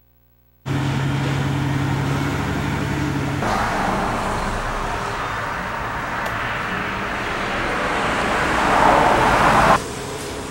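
Tractor-trailer diesel engine running steadily, with traffic noise. It starts suddenly under a second in, changes abruptly twice at edits, and grows louder before the second edit.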